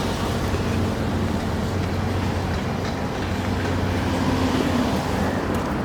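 Steady low engine hum over outdoor traffic noise, with the drone rising slightly in pitch about four seconds in.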